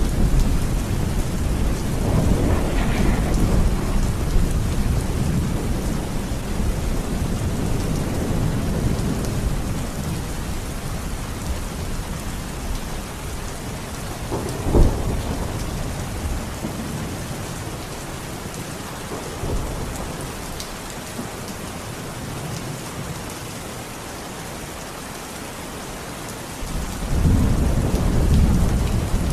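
Thunderstorm: steady rain with rolling thunder. A low rumble fades away over the first half, a single sharp thunder crack comes about halfway through, and a new rumble builds near the end.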